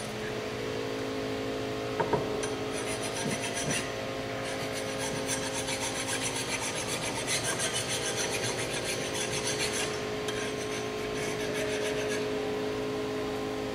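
A metal hand tool scraping back and forth on a steel horseshoe-pit stake in rapid rasping strokes, which thin out near the end, over a steady hum. A single sharp clank sounds about two seconds in.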